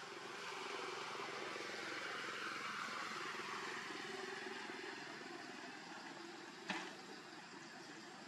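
Steady outdoor background hum that swells and then eases off, with one sharp click about two-thirds of the way through.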